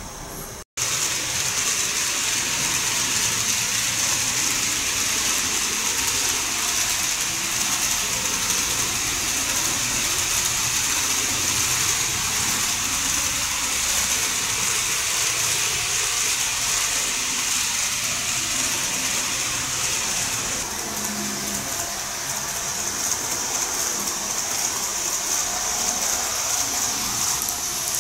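N gauge model train running along the track: a steady, hissing whir. There is a brief gap about a second in, and the sound shifts slightly in tone about twenty seconds in.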